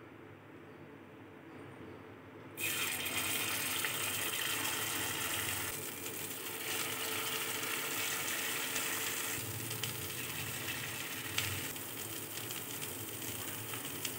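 Paniyaram batter sizzling in hot oil in the cups of a kuzhi paniyaram pan. The hiss starts suddenly about two and a half seconds in and stays loud and steady as more batter is poured.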